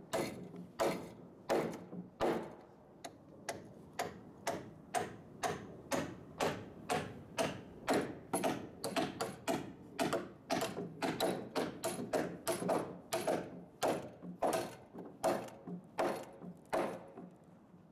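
Claw hammer driving nails into a wooden roof rafter: a steady run of sharp blows, about two to three a second, that stops shortly before the end.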